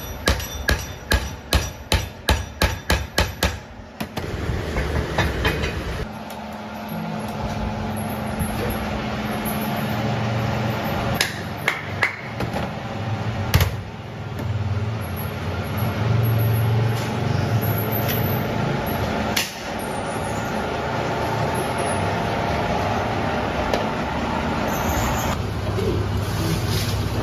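Rapid repeated hammer-like strikes on metal, about four a second, that stop about four seconds in. Then a steady machine hum with a low tone and a few sharp clicks, typical of workshop machinery running.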